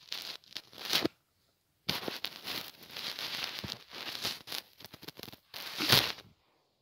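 Rustling, crackling handling noise from a handheld camera microphone being rubbed and shifted against skin, in irregular bursts. It cuts out completely for under a second about a second in, and the loudest rub comes about six seconds in.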